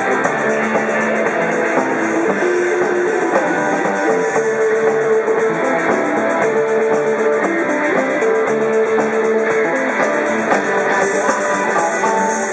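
Live rock band playing: electric guitars, bass guitar and a Slingerland drum kit, with long held notes recurring every couple of seconds.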